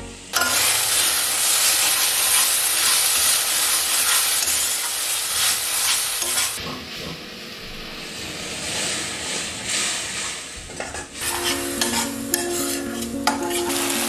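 Spiced masala paste sizzling and frying in a hot kadai, stirred with a spoon. The sizzle starts suddenly, softens about halfway through, and a few sharp clicks of the spoon on the pan come near the end, when soft background music returns.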